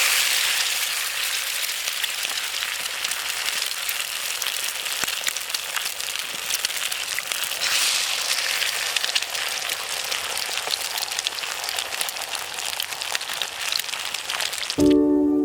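Campfire crackling steadily, a dense hiss full of small pops and snaps. Near the end, soft piano music comes in suddenly.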